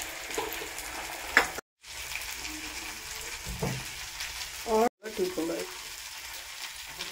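Food frying and sizzling in a pan, a steady hiss, with a sharp knock about a second and a half in. The sound drops out briefly twice at edit cuts.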